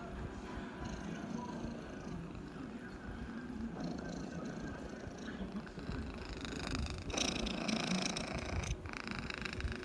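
Domestic cat purring close up: a steady, pulsing low rumble. Near the end it grows louder and noisier for a second or two.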